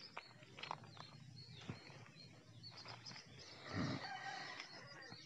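Birds chirping, with a short, louder animal call nearly four seconds in, over a faint low hum.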